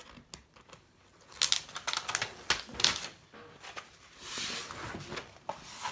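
A large diamond-painting canvas with its plastic cover being handled: a run of sharp clicks and crinkles, then a soft rubbing swish near the end.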